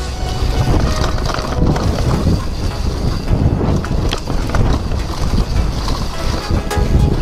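Downhill mountain bike ridden fast down a leaf-covered dirt trail: wind rushing over the microphone and a low rumble of tyres on the ground, with short knocks and rattles from the bike over bumps.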